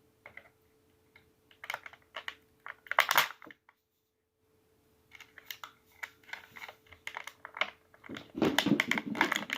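Plastic toy packaging being handled and opened by hand: irregular light clicks, taps and crinkles. There is a louder rustle about three seconds in and another near the end.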